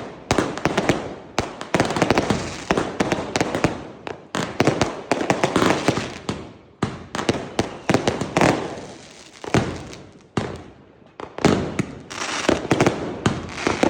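Fireworks going off in rapid volleys, many sharp bangs each followed by crackling, with brief lulls between the bursts.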